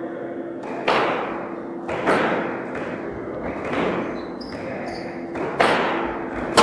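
A squash rally: the ball cracks off racquets and the court walls in several sharp strokes, each ringing on in the court's echo. The loudest come about a second in, about two seconds in, and near the end, over a steady low hum.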